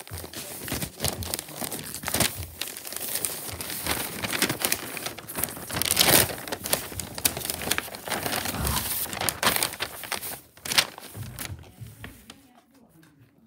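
Paper gift wrapping being crumpled and torn off a present: a dense, crackly rustling full of quick sharp crinkles that thins out and quietens about ten seconds in.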